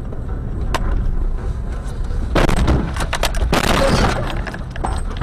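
A car collision heard from inside the car. About two and a half seconds in comes a crash of impacts and breaking that crunches on for about a second and a half, over the low rumble of the cabin and road noise.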